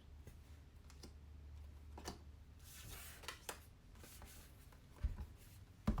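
Paper and card handling: faint rustling and light clicks as album contents such as photo cards are moved about, then two short dull thumps near the end.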